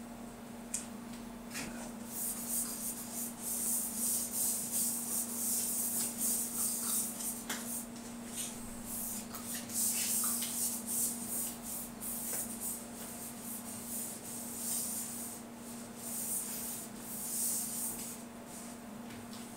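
A cloth rubbing over a bowling ball's surface in uneven strokes, wiping the freshly sanded ball down. The rubbing starts about two seconds in and dies away near the end, over a steady low hum.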